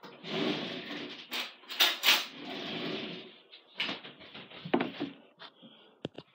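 Kitchen handling sounds: a continuous rustling noise for about three seconds, then several separate knocks and clicks.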